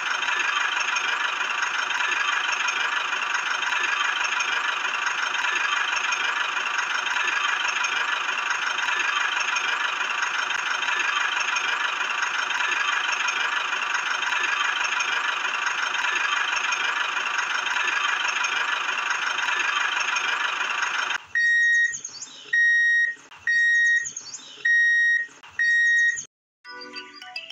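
A small electric motor whirring steadily with a dense, high hiss, which stops suddenly about 21 seconds in. Five short electronic beeps follow, about one a second.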